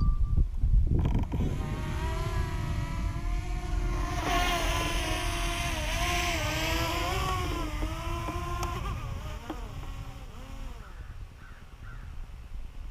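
A boat motor whining, its pitch wavering up and down for several seconds before fading out, over a low rumble.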